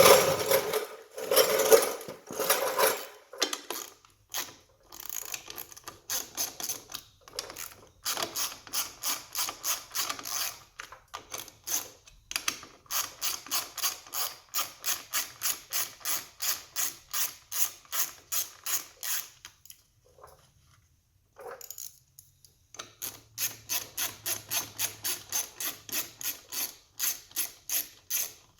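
Socket ratchet wrench clicking in long runs of quick, even strokes while loosening the bolts that hold the carburetor bowl on a Briggs & Stratton 163cc mower engine. A few louder knocks come at the start, and the ratcheting pauses briefly about twenty seconds in.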